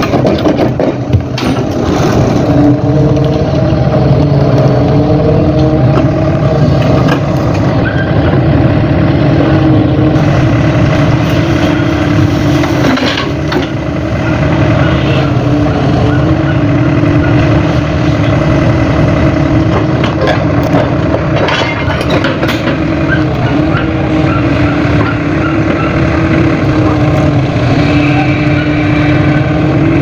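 Tracked excavator's diesel engine running steadily, with a few sharp knocks.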